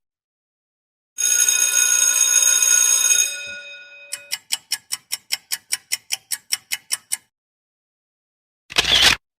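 Sound-effect clips: a bright ringing tone with many steady overtones for about two seconds that fades away, then a run of evenly spaced sharp ticks, about five a second, for some three seconds, and a short noisy burst near the end.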